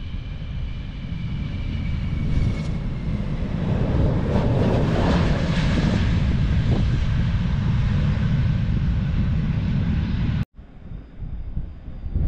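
Large multi-engine jet aircraft taking off along a runway: the engine noise builds over the first few seconds to a loud, steady rumble. It cuts off abruptly about ten seconds in, then a quieter jet rumble returns with a high whine slowly falling in pitch as the aircraft climbs away.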